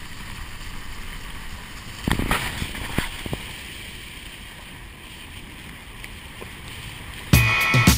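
Vehicle driving along a rough dirt road: steady road and wind noise, with a few knocks and rattles from bumps about two and three seconds in. Music with a beat starts near the end.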